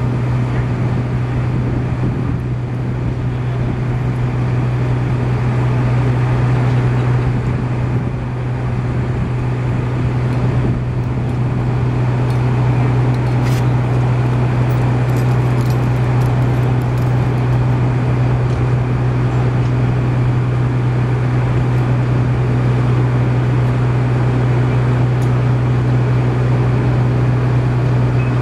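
An engine running steadily, a constant low drone that does not change in pitch or level.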